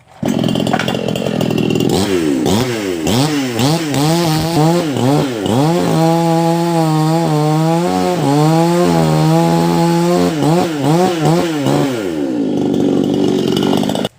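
Petrol chainsaw cutting into a palmyra palm trunk. The engine revs up and down repeatedly, holds steady at high speed for several seconds in the middle, then revs up and down again.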